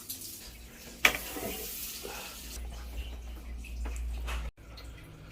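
Water tap running with a sharp knock about a second in, followed by a low steady hum of the pipe vibrating: water hammer at this tap. The sound cuts off abruptly about four and a half seconds in.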